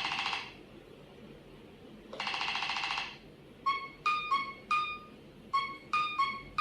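Nothing Phone (1) playing its electronic ringtone and notification sounds through its own speaker. A buzzy synthetic tone cuts off just after the start and another sounds for about a second at about two seconds in. From the middle on comes a run of about ten short, clipped beeps at a few different pitches in an uneven rhythm.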